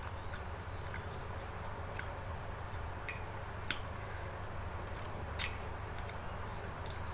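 Eating close to the microphone: a few short, sharp mouth clicks and smacks over a steady low hum, the loudest a little past five seconds in.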